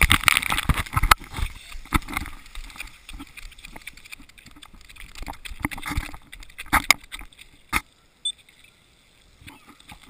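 Water spray pattering and splashing on a GoPro's housing, loudest near the start, with sharp knocks as the wet camera is handled; the sound drops almost to nothing about eight seconds in.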